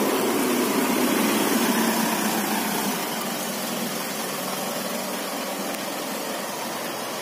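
Mitsubishi Pajero Sport's DI-D diesel engine running, a little louder for the first three seconds, then idling steadily.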